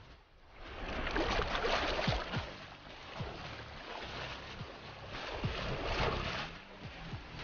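Water rushing and splashing with wind noise, as from a boat moving through the sea, swelling and easing in waves.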